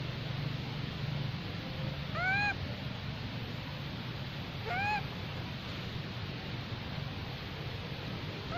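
Long-tailed macaque coo calls: short, clear calls that rise then fall in pitch, about two and a half seconds apart, twice in the middle and once more at the very end.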